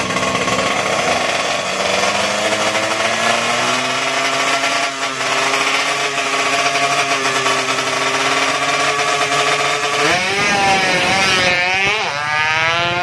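Drag-race motorcycle engine running steadily at the start line, then revved sharply up and down several times over the last three seconds.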